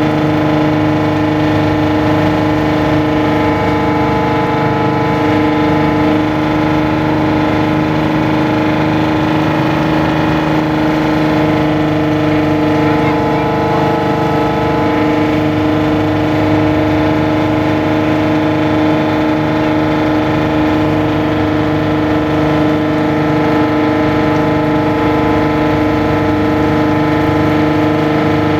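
A river boat's engine heard on board, running steadily under way: a loud, even drone with a strong steady hum that does not change.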